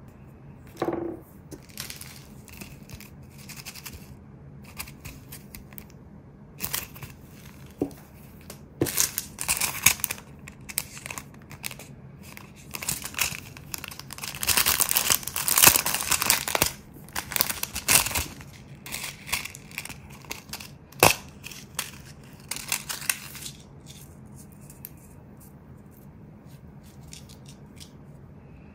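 Plastic-and-card packaging crinkling and rustling in irregular bursts as a gold rhinestone chain is pulled off its backing card, with scattered sharp clicks and taps from handling small tools. The rustling is loudest and densest in the middle.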